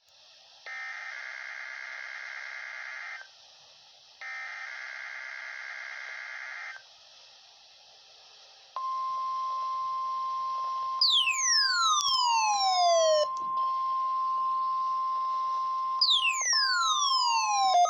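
NOAA Weather Radio receiver sounding an EAS activation over radio hiss. First come two long, screechy bursts of the digital EAS data header. Then, about 9 seconds in, the steady 1050 Hz weather alarm tone starts, and a loud whistle sweeps downward over it twice, at about 11 and 16 seconds in.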